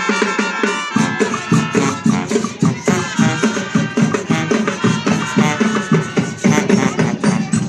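Marching band playing an upbeat Latin dance tune: brass melody over a steady drum and shaker beat.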